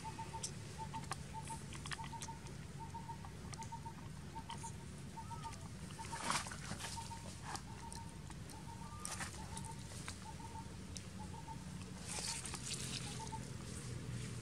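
Outdoor ambience of faint short chirps repeating in quick groups of two or three, with scattered rustles in dry leaf litter as the macaques shift. The loudest rustle comes about six seconds in.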